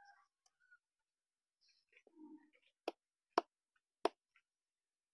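Three sharp knocks of a hand blade striking a jackfruit tree branch, about half a second apart, in the second half.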